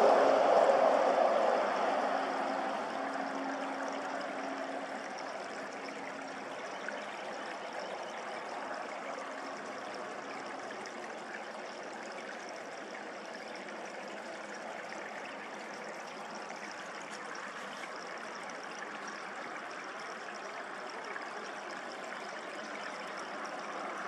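A steady rush like flowing water, louder for the first two seconds and then settling to an even level, with a faint low hum in the first few seconds.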